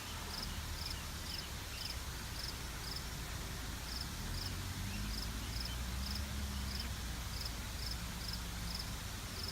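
A cricket chirping steadily, about two short high chirps a second, over a low rumble.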